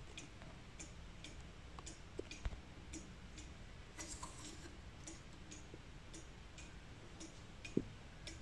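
Black Forest cuckoo clock's eight-day mechanical movement ticking steadily, about two ticks a second. Two soft knocks stand out, one about two and a half seconds in and one near the end.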